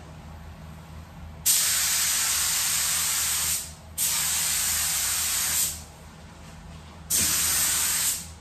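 Gravity-feed paint spray gun hissing as air and paint are sprayed onto a car body, in three passes of about two seconds, one second and a half and one second, each switched on and off sharply by the trigger. A steady low hum runs underneath.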